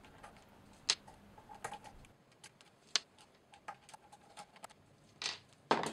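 Phillips screwdriver undoing the screws of a KitchenAid stand mixer's aluminium gear case: faint, scattered light clicks and ticks, with a couple of louder taps near the end.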